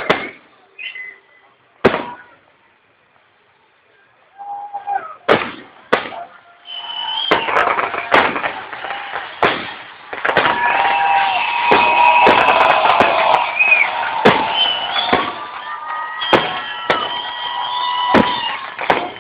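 Aerial fireworks shells bursting: single sharp bangs a few seconds apart at first, then from about seven seconds in the bangs come thick and fast over a dense, continuous din with high whistling tones running through it.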